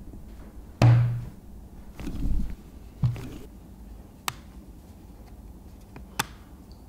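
Handling sounds. A heavy thump with a short deep boom comes about a second in, then a low rumble and a second thump. Two sharp plastic clicks follow as a speaker-system part is fitted onto a motorcycle helmet.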